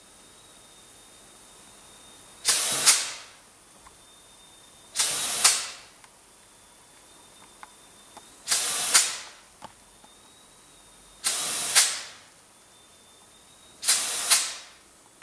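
Compressed air hissing out in five short bursts, about one every three seconds, each rising to a second, louder peak and fading within about a second.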